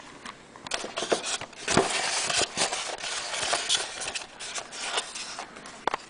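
Handling noise as the model jet's fuselage is moved and turned close to the microphone: rubbing and scraping with a few sharp clicks and knocks, densest about two to four seconds in.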